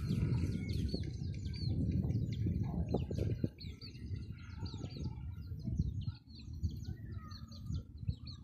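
Small birds chirping repeatedly, many short quick high notes, over a low rumbling noise that is loudest in the first three and a half seconds and then eases off.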